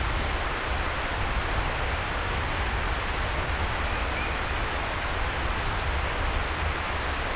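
Steady outdoor background hiss with a low rumble under it, and a few faint, short, high-pitched bird chirps scattered through.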